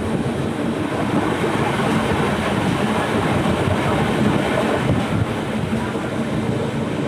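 Passenger express train coaches running at speed on the rails, a steady, even noise of wheels on track.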